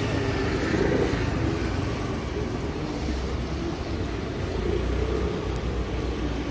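Street traffic: a motor vehicle's engine running with a steady low hum.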